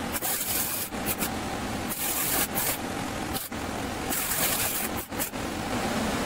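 Arc welding on a stainless steel propeller: three short bursts of hiss, each well under a second, that start and stop abruptly, over a steady low hum.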